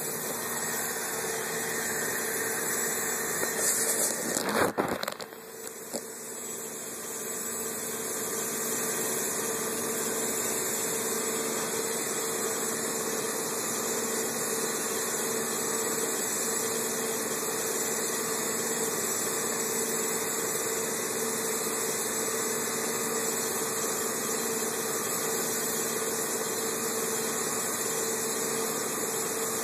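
A steady machine hum under an even hiss, like a motor running without a break. About four seconds in there is a brief, louder rustle.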